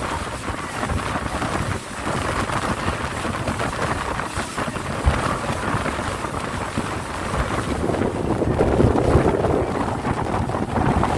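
Wind buffeting the microphone aboard a speedboat running at speed, mixed with the boat's engine and the rush of water along the hull, a steady loud noise that swells somewhat near the end.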